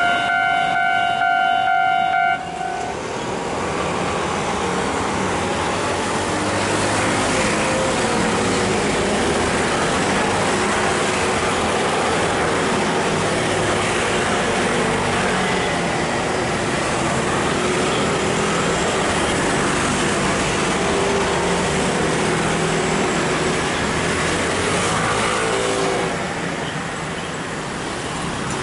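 A train's multi-tone horn is held as a steady chord and cuts off about two seconds in, followed by a steady rumble of passing vehicles that eases a little near the end.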